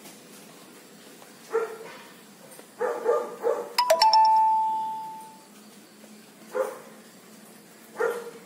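A dog barking in short, separate barks: one, then a quick run of three, then two more spaced a second or so apart. About four seconds in, a two-note chime sounds once, a brief higher note dropping to a lower one that rings and fades over about a second and a half.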